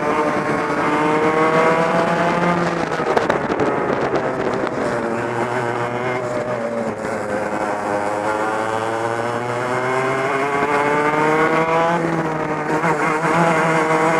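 Two-stroke racing kart engine heard onboard at full race pace, running loud and high-revving. The revs drop about three seconds in, build back up steadily, dip briefly near the end as the driver lifts for a corner, then climb again.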